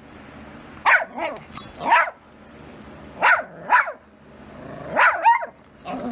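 Dogs play-fighting roughly, with short yapping barks in quick pairs, about seven in all.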